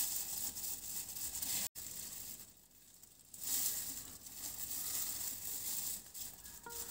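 Plastic gloves crinkling and rustling as hands rub hair colour cream through the hair, breaking off briefly about two seconds in. A few soft music notes come in at the very end.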